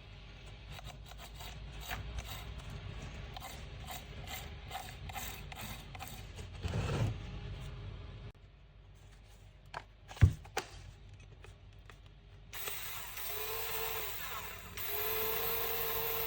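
Workshop handling noise: a run of irregular metallic clicks and taps, a single sharp knock about ten seconds in, then a small power tool's motor running in two spells near the end.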